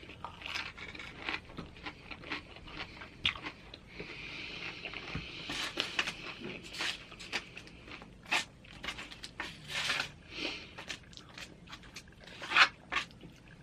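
Close-miked chewing of loaded tortilla-chip nachos: irregular crisp crunches and wet mouth clicks.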